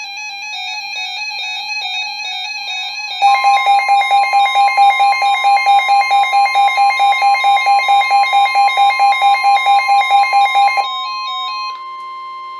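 Emergency alert tones for a flash flood warning, from an iPhone and a NOAA weather radio. A steady electronic alert tone is joined about three seconds in by a louder alarm pulsing about three to four times a second over a steady higher tone. The pulsing stops near the end, and the steady higher tone holds on alone, which fits the weather radio's warning alarm tone.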